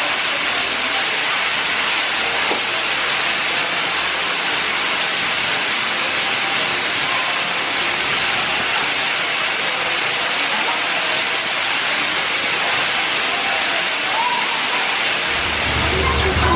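A loud, steady hiss that stays even throughout, with no distinct events.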